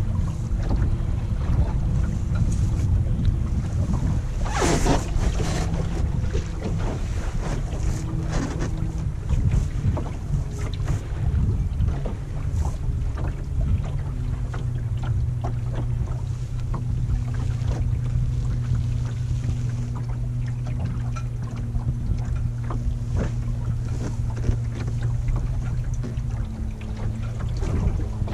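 Wind buffeting the microphone and water slapping against the hull of a small dinghy under way, with a steady hum from its Bison 40 lb thrust electric outboard that drops to a lower pitch about halfway through. A louder splash comes about five seconds in.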